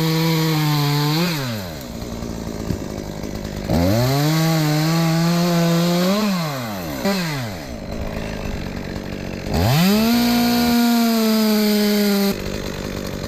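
Chainsaw revved to full speed three times, a couple of seconds each, as it cuts into a silver maple limb, dropping back to idle between cuts.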